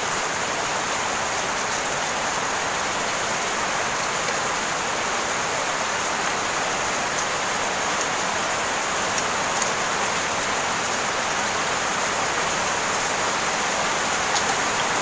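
Heavy rain falling in a steady hiss, with a few faint clicks about halfway through and near the end.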